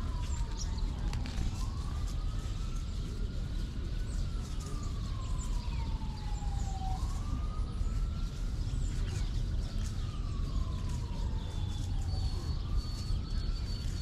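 Emergency vehicle siren in a slow wail, its pitch rising and falling smoothly, a full cycle about every five to six seconds, over a steady low rumble.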